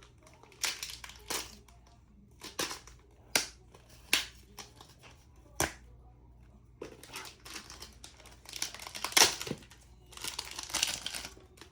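Toy packaging being opened by hand: a series of short, sharp crinkles and rips, with longer stretches of rustling near the end.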